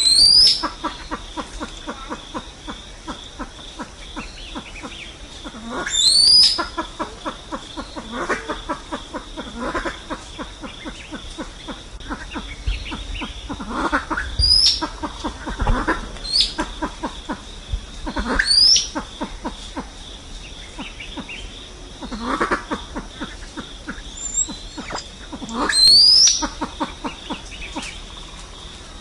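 Pheasant flock-gathering calls: short upward-sweeping whistles repeated every few seconds, each with a run of rapid low clucking.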